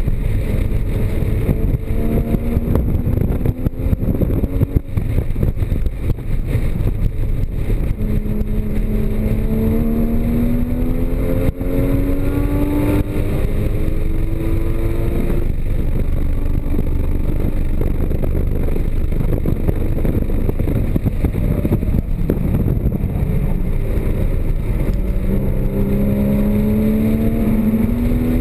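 Porsche Cayman GTS's flat-six engine driven hard on track, its note climbing in several long rising pulls with flatter stretches between, over steady road and wind noise.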